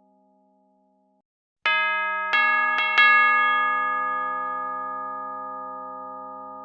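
Bell chime struck four times in quick succession, starting about a second and a half in, its tones ringing on and slowly fading. Just before the strikes, a fainter ring from an earlier chime dies away.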